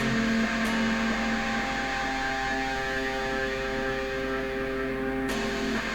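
Guitar playing an instrumental passage between sung lines, its chords left ringing out with few new strokes, over a steady hum.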